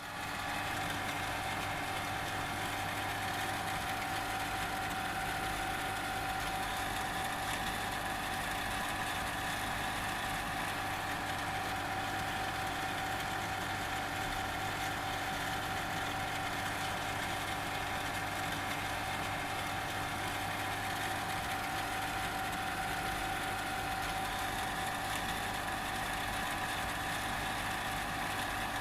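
Electric water jet pump running steadily: a constant low hum with a clear, steady whine above it.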